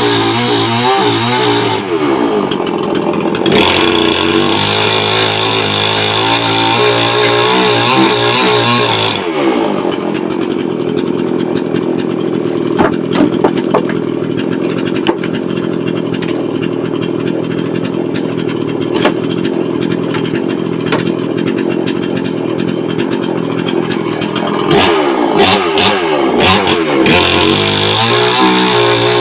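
Brait two-stroke petrol chainsaw running: revved high for the first several seconds, dropping to a lower, steady speed for about fifteen seconds with a few sharp clicks, then revving up again near the end.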